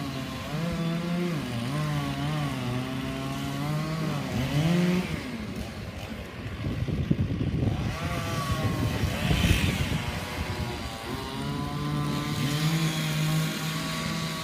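A petrol engine running at changing speed, its pitch stepping up and down. In the middle there is a stretch of rough, crackling noise.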